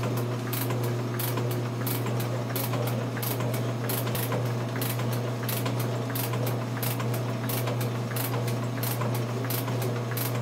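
Metal shaper taking the final cut on an aluminum block: a steady low motor hum under rapid, regular clicking as the ram strokes back and forth.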